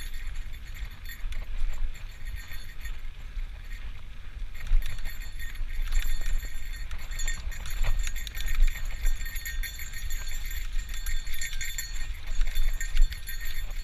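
Bicycle rattling and clicking as it rides over a rough dirt trail, with wind rumbling on the helmet or bike-mounted camera's microphone.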